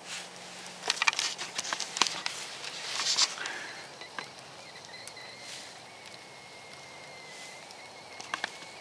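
Campfire coals crackling and popping under a wire grill basket in the first few seconds, then a thin, steady high whistle that sets in about four and a half seconds in and holds.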